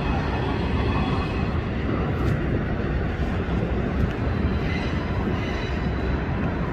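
CSX freight train rolling past: a steady rumble of wheels and cars on the rail, with a faint high squeal of wheel flanges rubbing the rail on the curve about five seconds in.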